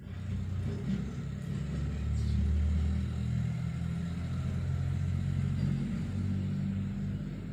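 A low, steady engine rumble, loudest about two to three seconds in.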